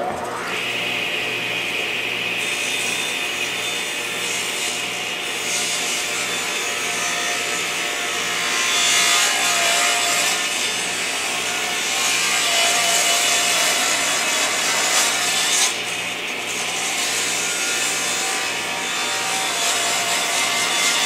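10-inch radial arm saw crosscutting a thick black walnut slab, the blade pulled slowly through the wood. Steady motor whine under loud cutting noise that grows louder around the middle of the cut.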